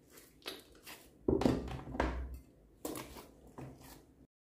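Hands squeezing and kneading a big mass of slime mixed with small beads, making a string of wet squishes. The two loudest, heavier plops come about one and two seconds in. The sound cuts off suddenly near the end.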